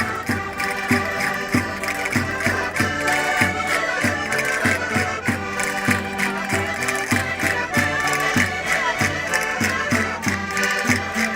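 Portuguese button concertinas playing a lively traditional Minho folk dance tune in sustained chords over a steady pulsing beat in the bass.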